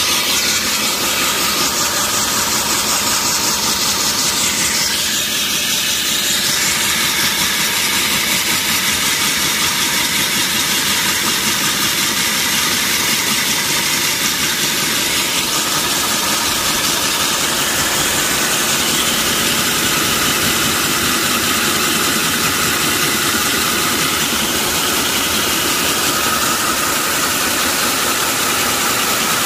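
Stand-mounted electric diamond core drill running steadily under load, its large drum bit grinding down through asphalt while being cooled with poured water.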